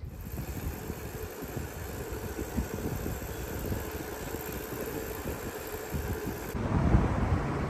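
Wind buffeting the microphone while cycling down a street: a steady, uneven rumble that swells louder near the end.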